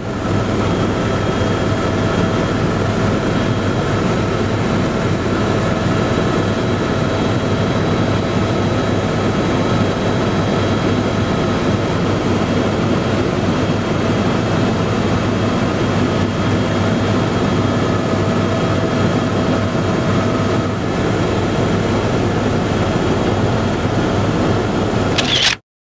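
Helicopter cabin noise in flight: a loud, steady drone of engine and rotor with several steady whining tones over it, cutting off suddenly near the end.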